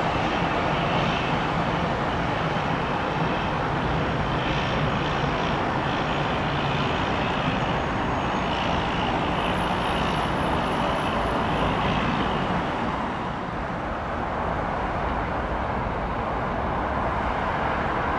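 Cessna 208B Caravan's single turboprop engine running steadily as the aircraft taxis, with a low steady drone and a thin high whine. About thirteen seconds in, this gives way to a slightly quieter, steady engine noise from a Boeing 737-700 on its landing approach.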